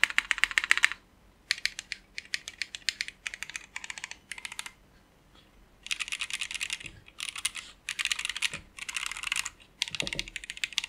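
Fast typing on an Ozma60 top-mount custom mechanical keyboard with Original Aspiration switches and full case foam: rapid runs of keystrokes broken by short pauses.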